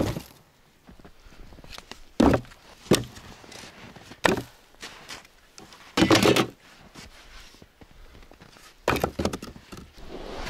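Split firewood logs being dropped one by one into a plastic sled, each landing with a wooden thunk; about six thunks, unevenly spaced, the longest about six seconds in.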